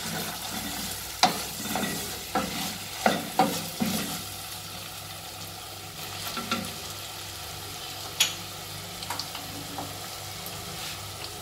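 Rice, chicken pieces and onion sizzling in oil in a stainless steel pot while being stirred with a wooden spoon, the spoon scraping and knocking against the pot now and then. The rice is being toasted in the oil so it does not turn out sticky.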